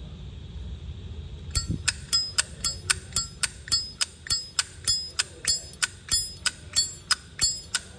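A Zippo lighter's hinged metal lid being flicked open and snapped shut over and over. It makes a rapid run of sharp, ringing metallic clinks, about four a second, starting about a second and a half in.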